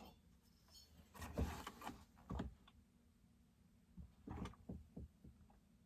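Faint, scattered clicks and light knocks of chainsaw engine parts (cylinder and piston) being handled during a teardown, a few at a time with short quiet gaps between them.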